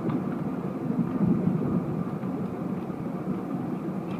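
Steady low rumble of city noise, with no distinct firework bangs standing out.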